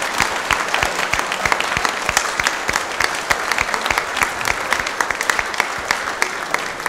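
Congregation applauding: a steady, dense stream of hand claps.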